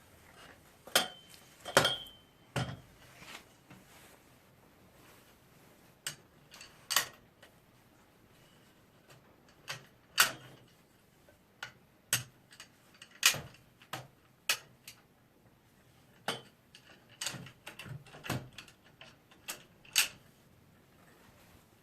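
Irregular clicks, knocks and metallic clinks of the parts of a twin-head halogen work light being handled and set down, with a brief ringing clink about a second in.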